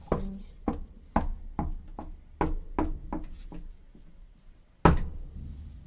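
A run of about seven knocks, roughly half a second apart, each with a short ringing tail, then a louder single knock near the end.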